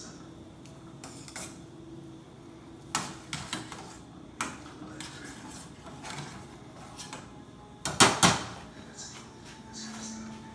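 A utensil knocking and clinking against a cooking pot: a few scattered sharp knocks, the loudest two close together about eight seconds in.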